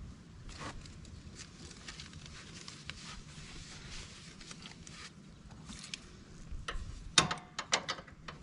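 Faint hand-work noises of a mower's oil drain plug being refitted: scattered light taps and ticks, then a quick run of sharp clicks about seven seconds in.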